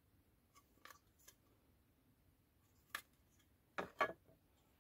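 Light clicks of a milled PCB being handled, then two louder taps close together near the end as the board is set down on the CNC machine's wooden spoil board.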